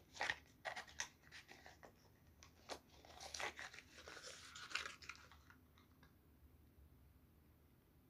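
Faint crinkling, rustling and small taps of packaging being handled around a spray bottle and its cardboard box. The sounds die away after about five seconds.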